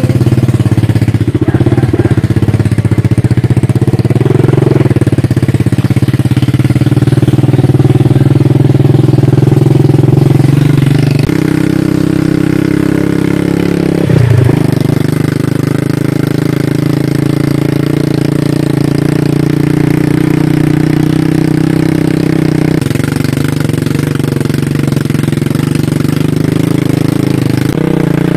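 Motorcycle engine running under way, heard close up from the pillion seat on a rough dirt road. The engine note holds steady, then shifts about a third of the way in and again near the end.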